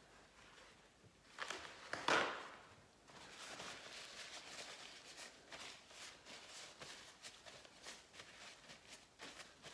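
Paper towel rustling and crinkling as it is rubbed over gloved hands to wipe off wet paint, with a louder swish about two seconds in as a sheet is taken up.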